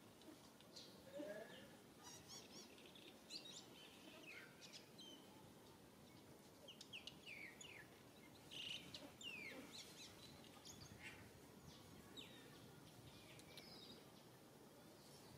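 Faint, scattered bird chirps and short downward-sweeping calls over quiet outdoor background hiss.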